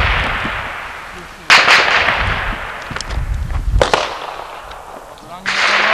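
Semi-automatic pistol fired one-handed: three shots about two seconds apart, each followed by a long echoing tail.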